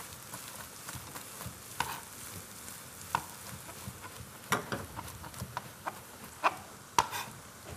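Chef's knife chopping on a cutting board: scattered knocks that come sharper and closer together in the second half. Under them is a faint steady sizzle of food frying in pans.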